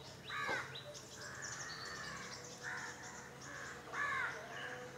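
A crow cawing twice, about three and a half seconds apart, with faint chirping of small birds in between.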